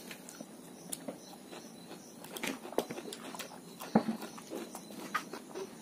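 Eating sounds: chewing and lip smacking with scattered light clicks of metal forks on plates, and one sharper clink about four seconds in.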